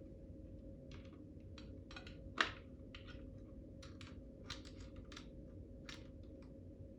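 Light, scattered plastic clicks and taps of a smoke alarm's battery compartment and batteries being handled, with one louder knock about two and a half seconds in, over a faint steady hum.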